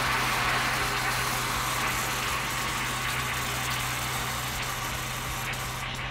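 Caustic soda pearls pouring into a glass bowl of water, then the solution fizzing around the submerged part: a steady hiss that slowly fades, over a constant low hum.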